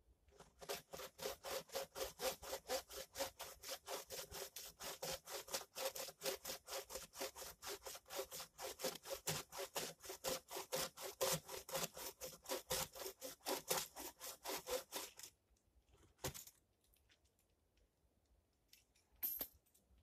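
Hand saw cutting a log on a wooden sawbuck, in quick even strokes about three a second that stop about fifteen seconds in. A couple of short knocks follow.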